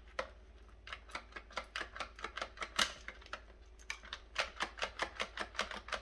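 Irregular plastic clicks and rattles, several a second, as wire-harness plugs are worked loose from a dishwasher's electronic control board in its plastic housing.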